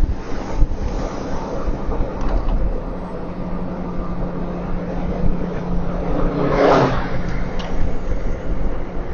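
Steady road and engine rumble inside a moving car, with a low hum. One short, sharper sound stands out over it late on.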